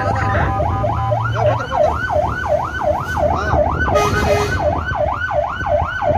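Electronic emergency-vehicle siren on yelp, its pitch sweeping rapidly up and down about three times a second, loud as heard from the vehicle carrying it while it drives to a fire call.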